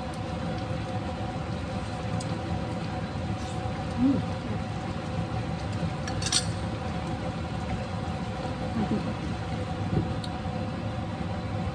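Chicken liver, gizzard and heart adobo simmering in a nonstick pan, a steady bubbling noise with a low hum underneath. A single sharp clink comes about six seconds in, and the glass lid is set on the pan near the end.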